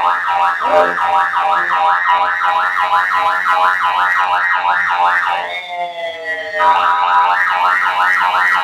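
Emergency-vehicle siren in yelp mode: a fast rising sweep repeated about three times a second. About two-thirds of the way through it breaks into a quieter, slowly falling tone for about a second, then the fast yelp resumes.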